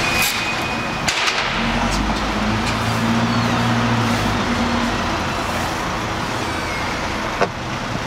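A plastic pet transport crate being loaded into a van, knocking about a second in and again near the end, over a steady rushing background noise.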